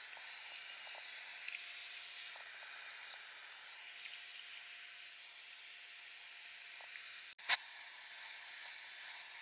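Handheld hair dryer blowing steadily, an even airy hiss with a thin high whine on top, heating a sticky price label to loosen its adhesive. A brief cut and click comes about seven and a half seconds in.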